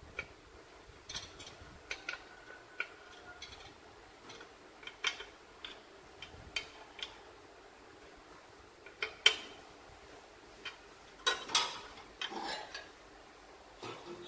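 Small open-end spanner clicking and clinking on the hex nuts of a black sheet-metal clock piece as the nuts are tightened: irregular light metallic taps, with a few louder clanks in the second half.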